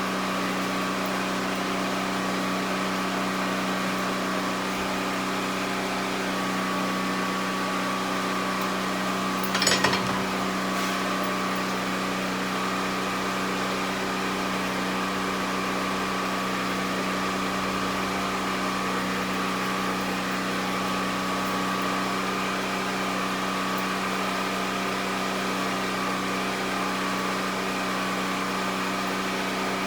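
A steady mechanical hum of shop machinery running, unchanged throughout, with a single short metallic knock about ten seconds in.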